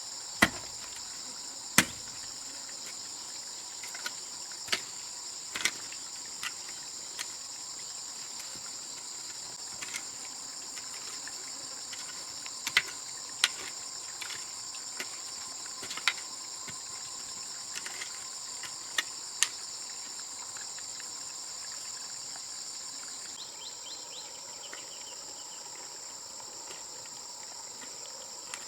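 Steady chirring of crickets, with irregular sharp knocks and taps scattered through the first twenty seconds or so; the knocks stop after that.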